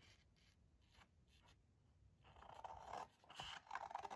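Faint rustle of a paper sheet being handled and scissors starting to cut into it, coming in about two seconds in after near silence, with a few small snips near the end.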